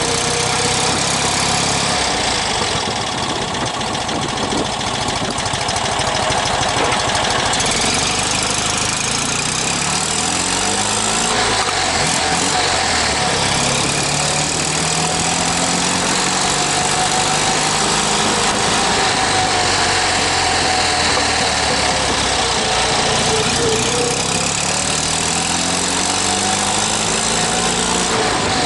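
Fiat 500R's air-cooled two-cylinder engine running through a new exhaust muffler, its revs rising and falling several times.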